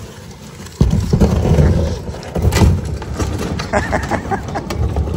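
A small boat's hull being dragged on a tow rope over a concrete ramp edge and across gravel and asphalt, scraping and grinding loudly. The grinding starts suddenly about a second in and carries on steadily.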